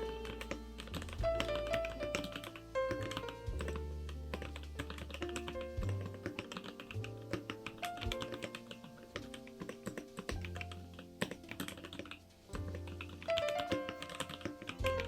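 Typing on a KBDFans Tofu65 mechanical keyboard with Kailh Icecream switches: a run of quick keystroke clicks. Background music with held bass notes and a melody plays alongside.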